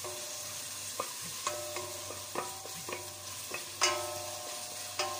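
Ginger, garlic and onion sizzling in a metal pot as a wooden spoon stirs them. The spoon knocks against the pot about eight times, each knock making the pot ring briefly; the loudest comes a little past the middle.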